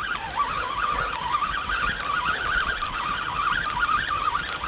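Shimano Sedona 6000 spinning reel being cranked, a steady wavering whir, as a hooked fish is reeled in on a feeder rod.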